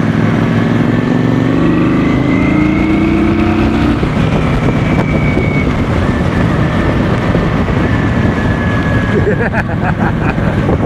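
Cruiser motorcycle engine under way. Its pitch climbs slowly for the first four seconds, then drops and holds steady, over a constant rush of riding noise.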